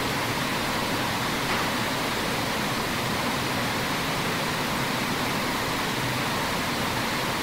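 Steady, even hiss of noise at constant loudness, with no distinct events in it.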